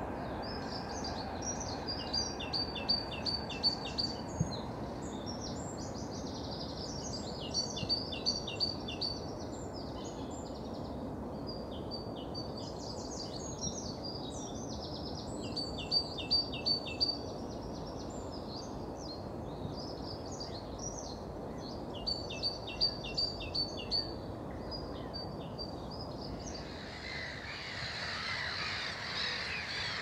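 A songbird singing short trilled phrases of rapidly repeated high notes, about six phrases a few seconds apart, over a steady low background rumble. Near the end a busy chorus of many birds calling takes over.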